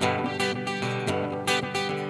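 Acoustic guitar strummed in a steady rhythm of chords, about four to five strokes a second.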